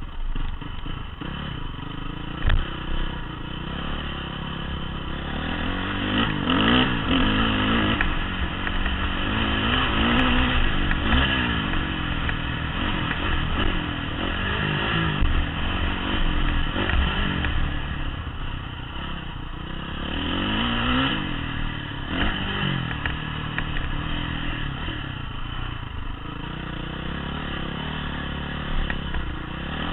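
Honda CRF450 dirt bike's single-cylinder four-stroke engine, heard on board, revving hard with its pitch climbing and dropping again and again through acceleration and gear changes, loudest through the middle. Clatter and scraping from the bike over rough dirt mix in.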